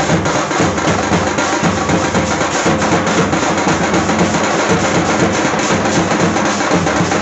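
Loud music with dense, steady drumming, typical of a Ganesh immersion procession.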